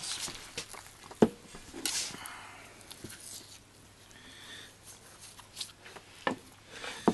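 A knife slicing and scraping fat off a raw deer hind quarter on a plastic cutting board, with a sharp knock about a second in and two more near the end.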